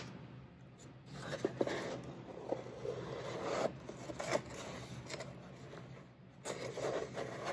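Cardboard hairbrush box being closed and handled, with cardboard sliding and rubbing against cardboard and a few light taps. The rubbing comes in two spells, the second starting near the end.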